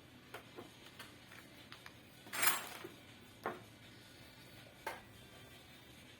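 Light clicks and knocks of a sewing machine and its parts being handled, with a short scraping rustle about two and a half seconds in and two sharper knocks after it.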